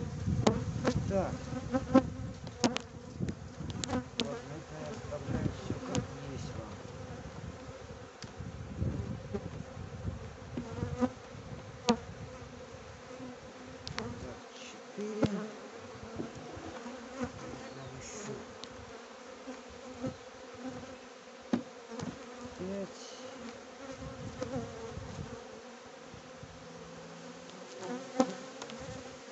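Honeybees buzzing steadily over an open hive full of bees, with scattered clicks and knocks as wooden comb frames are lifted out and set back in the hive body.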